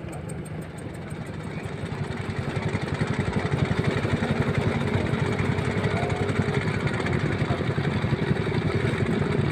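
Fishing boat's engine running with a rapid, even low pulse, growing louder about two to three seconds in.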